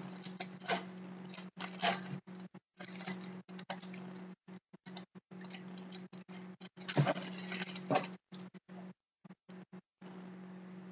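Foil trading-card pack being torn open and its cards handled: scattered crinkles and clicks, loudest about 7 to 8 seconds in, over a steady low hum.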